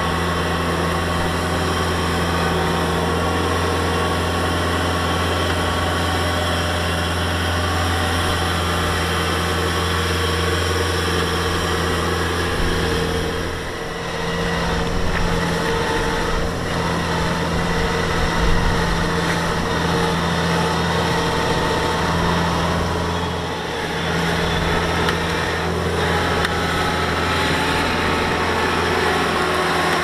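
Kubota DC-70 combine harvester's diesel engine running steadily under working load, with machinery noise; the engine note dips briefly twice, about halfway and three-quarters of the way through.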